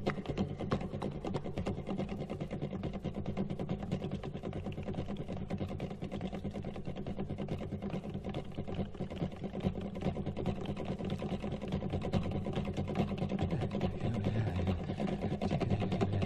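Instrumental passage of a live solo concert recording with no singing: a dense run of fast, closely spaced strokes over steady low sustained notes.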